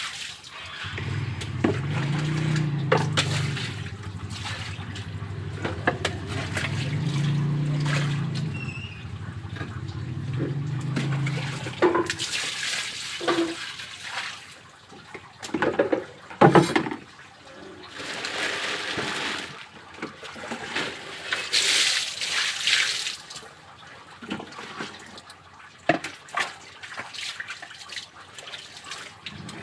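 Water being scooped and poured from a plastic dipper into a basin, coming in splashing gushes in the second half. A few sharp knocks sound about halfway through, and a low hum runs under the first part.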